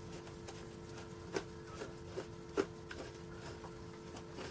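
Light scattered clicks and taps of small metal parts and tools being handled during motorcycle engine assembly, with two louder knocks, one about a second and a half in and one a little past halfway. A steady low hum runs underneath.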